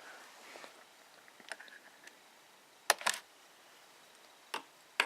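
A few light clicks and taps from handling a laptop and its CD, with a sharp pair of clicks about three seconds in, over faint room tone.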